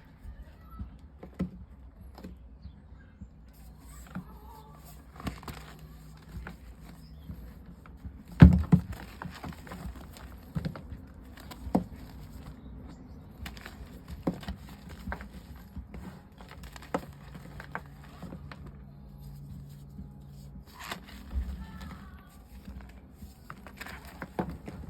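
Gym chalk slabs with a cornstarch spread being pressed and broken by hand: scattered crunches, squeaks and taps, with a sharp knock about eight and a half seconds in.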